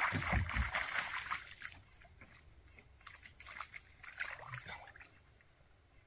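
Water splashing as a German shepherd wades in at the water's edge: heavy splashing for the first second or so, then lighter, scattered splashes and sloshing that fade out about five seconds in.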